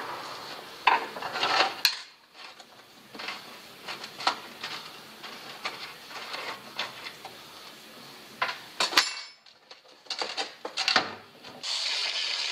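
Hand tools clinking, knocking and scraping on a rusty steel bumper while working at seized screws, in irregular bursts with one sharp metal clank about nine seconds in. Near the end an angle grinder starts cutting the metal with a steady, high-pitched grinding.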